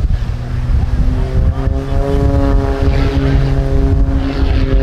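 Single-engine aerobatic propeller plane droning overhead at a steady pitch, with heavy wind buffeting on the microphone.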